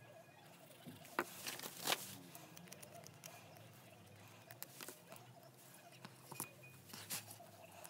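Quiet handling of paper and card during gluing: faint rustling and scraping with a few sharp clicks and taps, the loudest about a second in and near the end.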